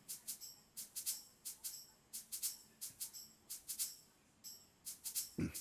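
Swung shaker loop: short, crisp shakes in a steady swung pattern, with a brief gap about four and a half seconds in. A single low drum hit comes near the end.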